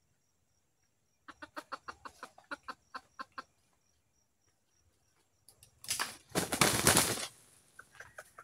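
Red junglefowl clucking in a quick series of short notes, then a loud rush of wing flapping from about six seconds in, with the clucking starting again near the end.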